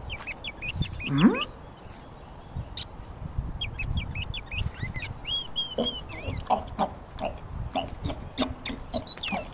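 Birds chirping in quick series of short, high calls, over low thumps and rustling. About a second in comes a single loud rising whoop.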